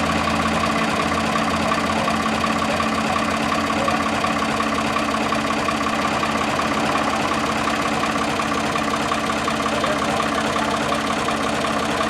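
An engine running steadily with an even, unchanging drone.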